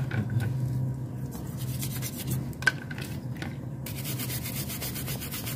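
A brush scrubbing the oily casing of a Suzuki RC100 motorcycle engine in repeated scraping strokes, with one sharp tap about two and a half seconds in. A steady low hum runs underneath.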